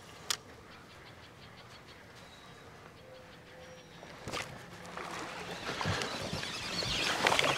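Hooked bass splashing and thrashing at the surface as it is reeled in close to the boat, the splashing building and growing louder through the last few seconds; a sharp click sounds about a third of a second in.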